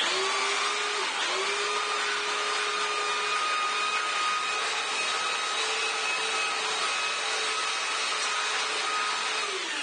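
Belt sander with a 40-grit belt running, sanding a cedar board against the grain. It starts abruptly, holds a steady hum with a higher whine, dips briefly in pitch about a second in, and begins to wind down with a falling pitch right at the end.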